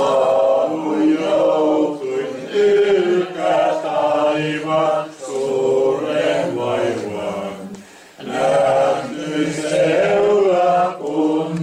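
Small mixed group of men and women singing a Finnish hymn together unaccompanied, in long, slow drawn-out phrases, with a short break for breath about eight seconds in.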